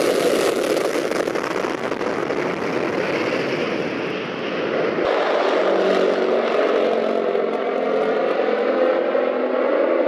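MiG-31 interceptor taking off on full afterburner: a loud, even jet roar. About five seconds in it cuts to the steady droning hum of a Tupolev Tu-95-family bomber's turboprop engines as it rolls along the runway.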